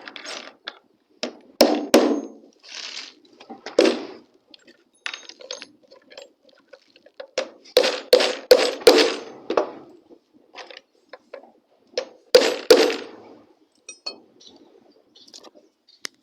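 Hammer blows on nails, metal striking metal with a ringing clink, in short irregular bursts of a few blows each, the strongest run of blows about eight seconds in.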